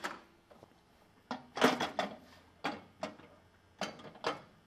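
Microwave oven door clicking open, then a series of short knocks and clatters as a plastic food container is set down inside the microwave.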